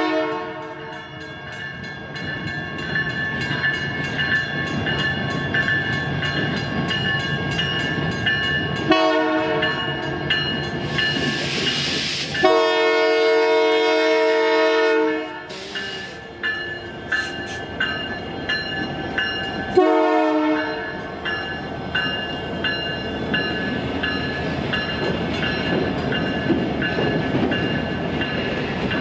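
Diesel locomotive of a freight train sounding its multi-chime horn for a level crossing: several blasts about 9, 12.5 and 20 seconds in, the middle one the longest. The engine rumbles as it nears and passes, then the cars roll by with some wheel clatter, while the crossing bells ring steadily.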